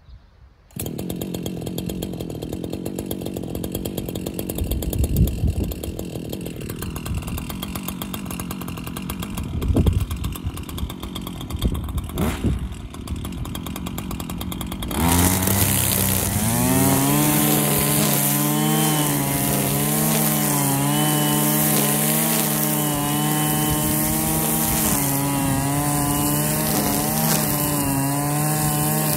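Husqvarna 545RX two-stroke brushcutter engine starting about a second in and running at low revs. About halfway through it is opened up to high revs, its pitch wavering as the trimmer line cuts grass.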